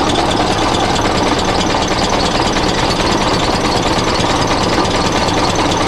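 Small Chinese bench drill press running steadily with an eighth-inch bit in the chuck, its motor and belt giving an even mechanical noise.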